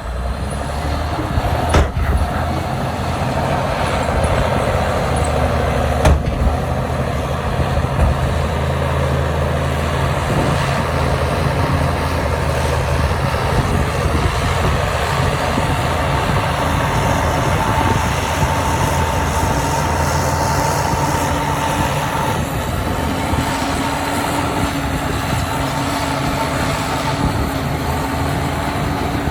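Heavy diesel earthmoving machinery running steadily under load, with a few sharp knocks in the first several seconds.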